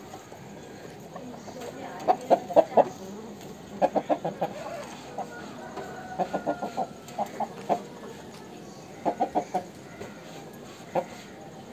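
Aseel rooster clucking in repeated bursts of a few quick, sharp clucks, about half a dozen bursts a second or two apart.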